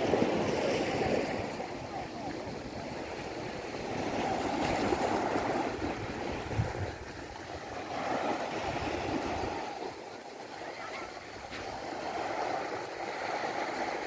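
Sea water washing and small waves breaking on a pebble shore, swelling and easing every few seconds.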